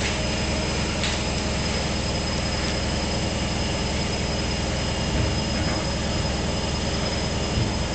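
Large washing machine running: a steady mechanical rumble with a thin, constant high whine.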